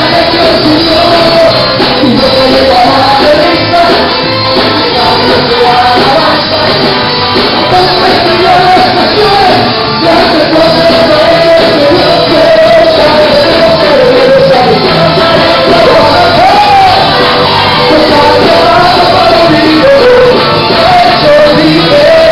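A song playing loudly: a singing voice over a full band, running without a break.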